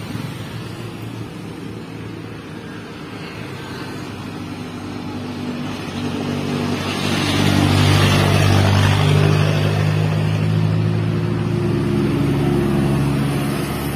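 A truck's diesel engine running as the truck passes by, with tyre rush, growing louder from about six seconds in and loudest around eight to nine seconds. A steady engine hum carries on through the end.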